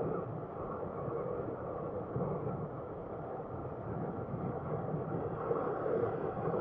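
Motorcycle running at road speed, with a steady engine drone and wind noise picked up by an action camera mounted on the bike; the sound is dull, with little treble.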